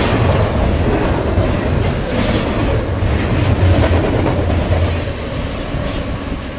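Norfolk Southern double-stack intermodal well cars rolling past on the rails, with a steady low rumble and wheels clacking over rail joints. The sound eases off near the end as the last car goes by.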